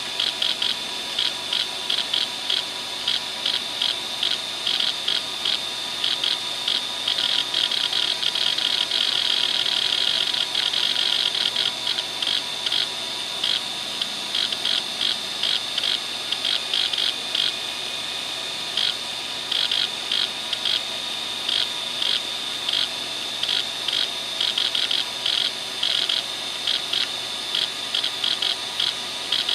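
Western Digital WDAL2540 540 MB 2.5-inch laptop hard drive running the hdmotion seek test: the head actuator chatters in fast runs of seek clicks, most continuous about a third of the way in, over a steady high whine from the spinning drive. The drive is failing, throwing uncorrectable read errors as it seeks.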